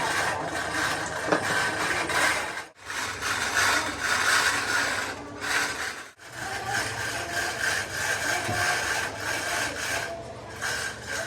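Workshop machining noise: a steady rubbing and grinding with a steady whine running through it, breaking off sharply twice.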